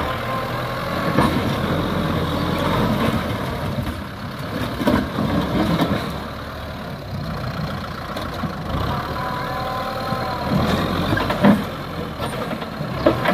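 Kubota M6040 tractor's four-cylinder diesel engine running steadily under load as its front blade pushes into broken concrete, with scattered knocks and crunches of concrete slabs breaking and shifting; the loudest knock comes near the end.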